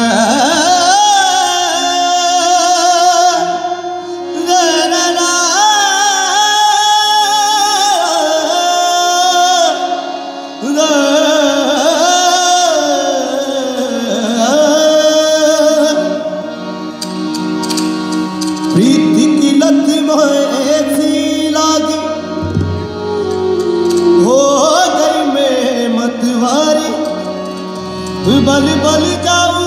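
Live Rajasthani Langa folk-fusion band playing, with a man singing long, wavering, ornamented lines over electric guitar, drum kit and hand percussion.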